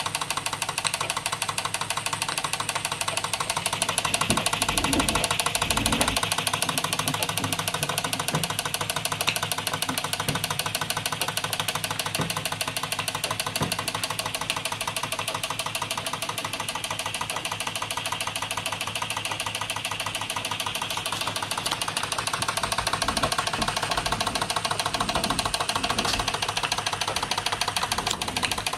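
Jensen 35 toy steam engine running on live steam and driving a Jensen #100 toy workshop through belts: a rapid, steady mechanical clatter from the engine and the belt-driven miniature machines. A steam hiss runs under it and swells twice.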